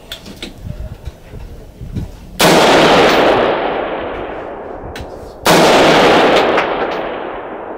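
Two rifle shots about three seconds apart, the first about two and a half seconds in. Each is a sharp crack followed by a long rolling echo that fades over about three seconds, with a few faint clicks before the first shot.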